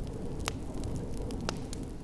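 Wood fire crackling in a fireplace, with two sharp pops about a second apart and fainter ticks, over a steady low rumble of snowstorm wind.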